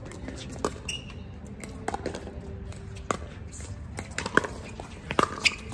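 Pickleball paddles striking a hollow plastic ball in a rally: a series of sharp pops about a second apart, with a quicker pair near the end.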